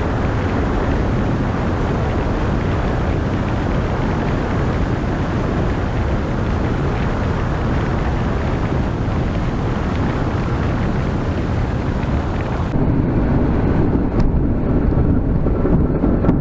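Z602 XL ultralight on short final and landing roll: steady engine and airflow noise with wind buffeting the microphone. Near the end the sound turns duller, as heard inside the cockpit, with a single click.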